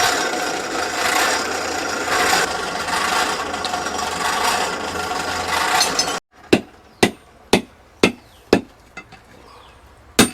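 A steady rasping scrape, swelling about once a second, cuts off abruptly about six seconds in. Then a blacksmith's hammer strikes a machete blade on the anvil about twice a second, each blow ringing briefly, followed by a few lighter taps and one more strike near the end, shaping the blade.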